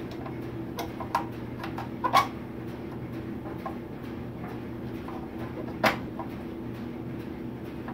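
Scattered clicks and knocks of furnace pressure switches, tubing and wiring being handled against the metal inducer-motor housing, the loudest about two seconds in and another near six seconds, over a steady low hum.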